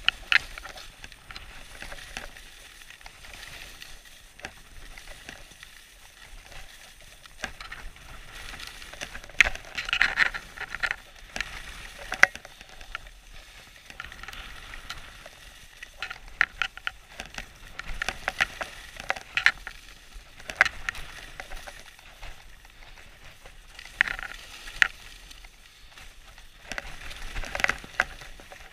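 Sliding and scraping on groomed snow during a descent, a steady hiss broken by irregular louder scrapes as the edges bite in the turns.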